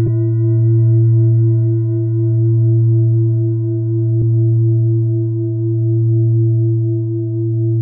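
A loud, deep, sustained ringing tone with several steady higher overtones, swelling and fading slowly like a singing bowl or drone.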